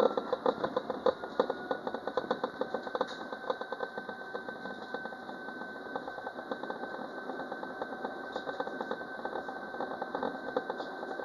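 Citadis Dualis tram-train running, heard from the cab. A high whine rises slightly over the first few seconds and then holds steady, over a rapid, irregular clatter.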